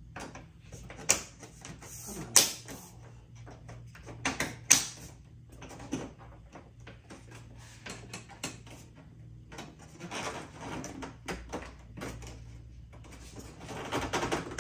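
Rear-window trim molding of a 1981 Corvette being pressed by hand onto its retaining clips around the glass: a few sharp snaps and knocks, the loudest about a second, two and a half and nearly five seconds in, then lighter taps and rubbing.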